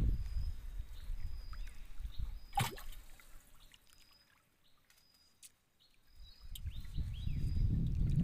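Low, uneven rumbling outdoor noise around an open wooden fishing boat. It dies away to near silence in the middle and builds again near the end. A short, high bird call repeats about once a second, and there is one sharp knock about two and a half seconds in.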